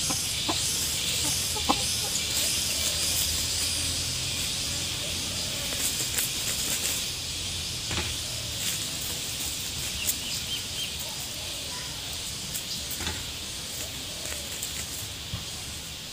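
A chicken clucking softly now and then as it forages in leaf litter, with scattered short ticks and a steady high hiss behind.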